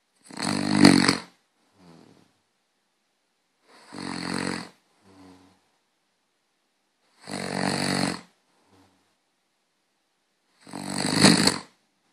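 Snoring: four long, rattling snores about three and a half seconds apart, each followed by a short, fainter sound.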